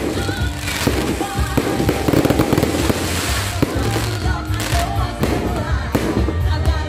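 Aerial fireworks going off in rapid, irregular succession, a dense barrage of bangs and crackles, with music playing underneath.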